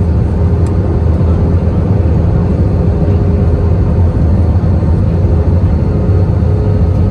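Steady engine and airflow noise of an Airbus A320 airliner on descent, heard inside the cabin from a seat over the wing: a loud, even rumble with no sudden sounds.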